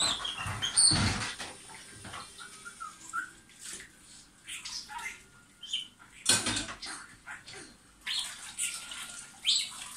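Budgerigar warbling, a run of short, varied chirps and twitters, over loud household background noise with louder rushing bursts near the start and about six seconds in.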